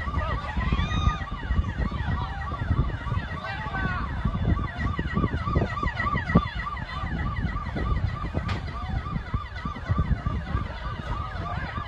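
Emergency-vehicle sirens yelping: two overlapping sirens, one rising and falling about three times a second, over a steady low rumble.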